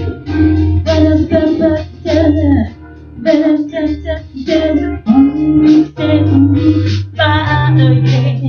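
Music: a song with a singing voice over a steady bass line and guitar.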